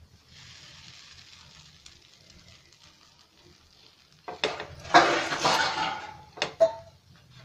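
Bread sandwiches toasting on a non-stick tawa with a faint hiss. About four seconds in come a few sharp knocks and a louder scraping, rustling burst as hands shift the toasting sandwich triangles on the pan.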